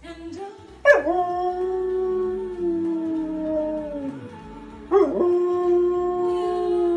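Samoyed howling along with music from a television: two long howls, each starting with a sharp rise in pitch. The first begins about a second in and slides down near four seconds; the second begins about five seconds in and is held.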